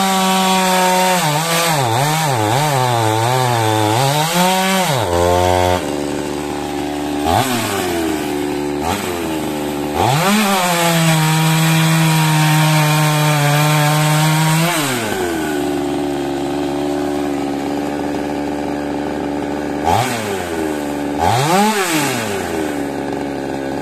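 Tuned Oleo-Mac GSH 560 two-stroke chainsaw, fitted with a Hecht 958 cylinder and a reworked exhaust. It revs up and down for the first few seconds, drops to idle with short throttle blips, then runs steadily at high revs for about five seconds while cutting through a log. It falls back to idle, with two quick revs near the end.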